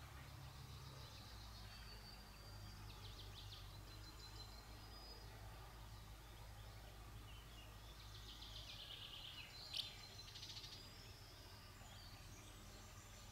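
Faint birdsong: several short runs of high, rapid chirping calls over a quiet background with a low steady hum. A single sharp click comes about ten seconds in.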